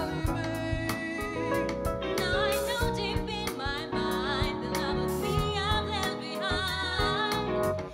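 A live band playing a song, with a singer holding wavering notes over bass and drums.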